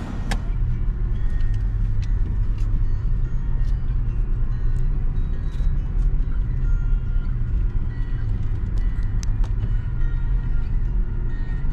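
Car engine and road rumble heard from inside the car's cabin, a steady low drone.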